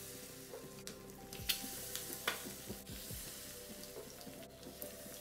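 Batter-coated eggs sizzling in hot oil in a frying pan, a steady hiss with a few sharp clicks and pops.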